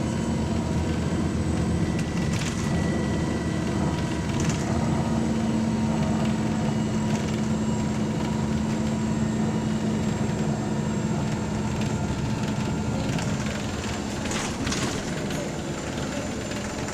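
Volvo B9TL double-decker bus's diesel engine running under way, heard from on board, with a steady drone and a few light rattles. The bus has an exhaust leak and sounds hard.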